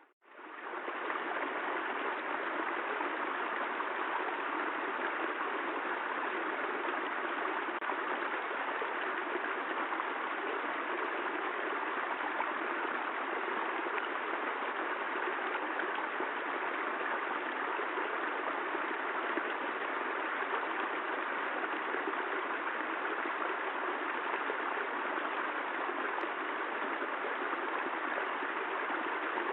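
Steady rain falling, an even hiss without pauses. It cuts out briefly right at the start and fades back in within half a second, like the join of a looped recording.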